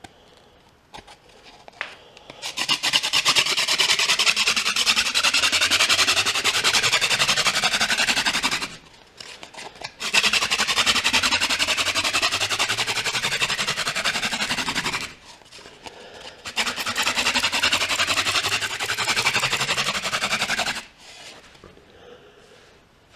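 Wooden spindle of a friction-fire drill spinning hard in a notched wooden hearth board: a loud, fast rubbing in three long bouts with short pauses between. The drilling grinds dark char dust into the notch to build an ember.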